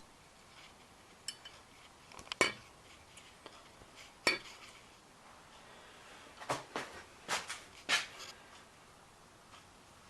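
Metal pieces clinking and knocking as they are handled and set down: about seven scattered sharp clinks. The two loudest, about two and four seconds in, ring briefly.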